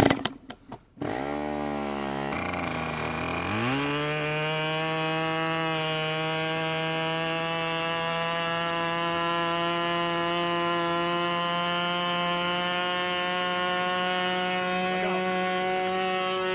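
O.S. Max .40 two-stroke nitro (glow) model airplane engine turning a 10x5 propeller, started with an electric starter: brief rough bursts as it is spun over, then it catches about a second in. Its pitch dips, climbs around three to four seconds in, and then it runs steadily.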